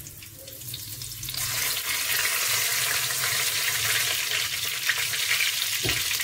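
Fennel seeds sizzling and crackling in hot oil in a clay pot, the sizzle swelling a second and a half in as the seeds start to fry: the oil is hot enough for tempering.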